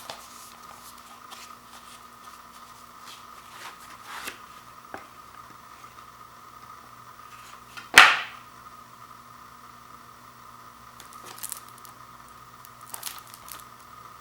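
A sealed Blu-ray case and its wrapping being handled: scattered small clicks and crinkles, with one sharp, loud crack about eight seconds in.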